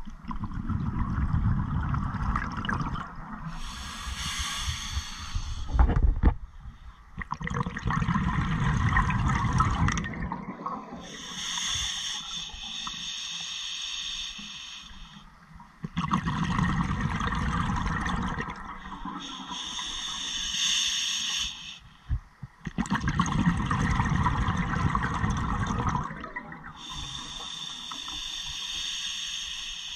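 Scuba diver breathing through a regulator underwater: long bubbling rumbles of exhaled air alternate with shorter hissing inhalations, about four breaths, with a sharp knock about six seconds in.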